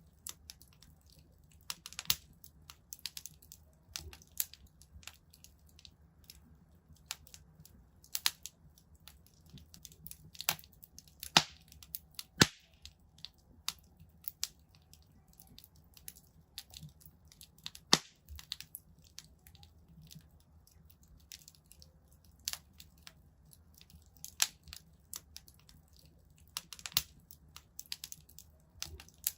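Fireplace fire crackling: irregular sharp snaps and pops, a few noticeably louder than the rest, over a faint low rumble of the flames.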